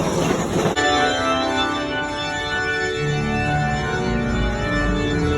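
Mine train rumbling on its track for under a second, then cut abruptly to organ music playing held chords.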